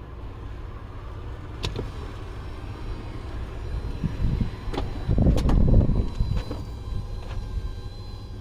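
Power-folding Stow 'n Go rear seats of a 2008 Chrysler Town and Country moving back up, with several sharp clicks and a heavy low rumble about five seconds in, over the steady hum of the running engine. A faint high steady tone runs through the second half.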